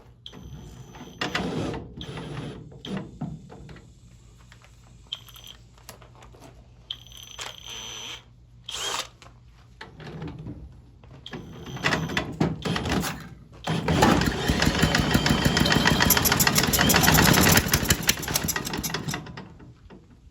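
Briggs & Stratton Model Y washing-machine engine being cranked in several short tries, then firing and running loud and fast for about five seconds before it dies away. It has no exhaust fitted.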